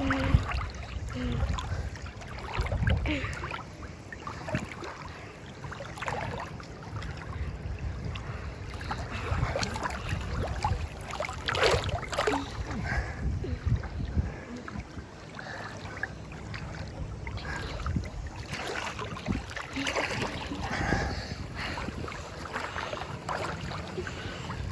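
Swimmers' strokes splashing and sloshing irregularly in open sea water, with low wind rumble on the microphone.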